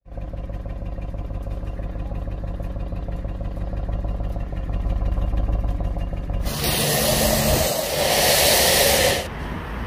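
Audi RS 6 Avant's twin-turbo 4.0-litre V8 idling steadily through its oval tailpipes. About six and a half seconds in it gives way to a loud, even hiss of a high-pressure water jet spraying the car's rear, which stops shortly before the end.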